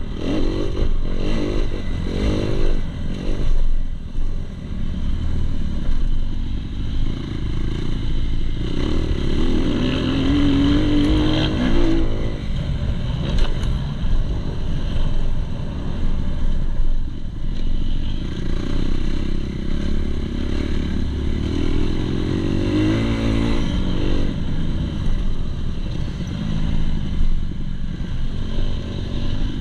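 2019 Kawasaki KX250 motocross bike's four-stroke single-cylinder engine revving up and easing off as it is ridden over a dirt track, heard close up from the bike. The revs climb in a rising whine around the middle and again near the end.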